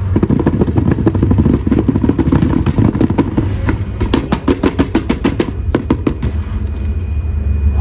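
Plastic toy parts being handled, scraping and clattering, with a quick run of sharp clicks about midway, over a steady low hum.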